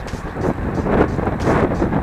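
Wind buffeting the microphone of a camera riding along at race speed, a loud rushing noise that swells and dips unevenly.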